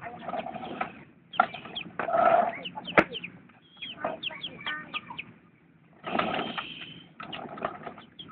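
Chickens clucking in short irregular calls, with a sharp click about three seconds in.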